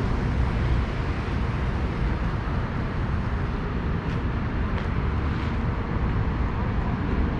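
Steady low rumble of outdoor city noise, with a few faint clicks about four to five and a half seconds in.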